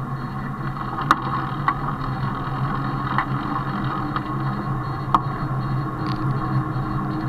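Mongoose Brutus fat-tire bicycle rolling on asphalt: a steady tyre hum and road noise, with a few sharp clicks from bumps, two of them louder, about a second in and again near five seconds.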